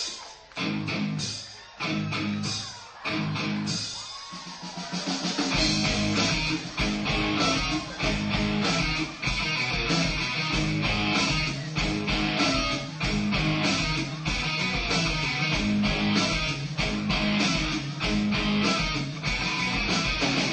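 Live rock band opening a song: a few guitar chords struck and left to ring, then about five seconds in drums and bass come in and the full band plays on at a steady beat.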